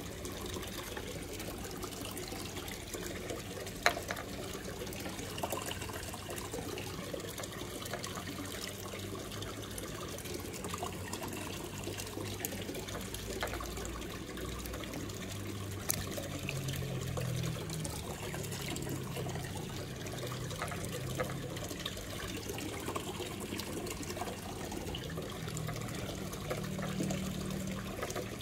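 Aquarium water trickling steadily, with a low hum that comes and goes in the second half and a sharp click about four seconds in.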